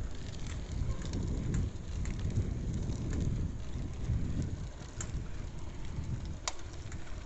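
Wind buffeting a phone's microphone on a moving bicycle, a dense fluctuating low rumble mixed with tyre noise on the road. Two sharp clicks come in the second half, typical of the bike rattling over bumps.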